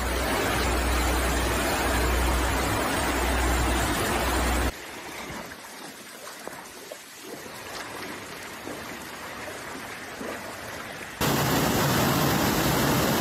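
Muddy floodwater rushing and churning loudly, with a deep rumble underneath. About five seconds in it cuts abruptly to a much quieter, softer rush of water, and about two seconds before the end the loud rushing of a swollen flooded river suddenly returns.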